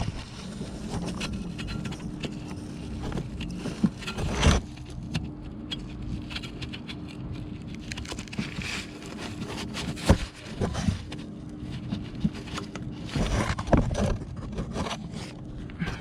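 Irregular metallic clicks, knocks and scrapes of hand tools and loose engine parts being handled during work on a diesel engine bay, over a faint steady hum.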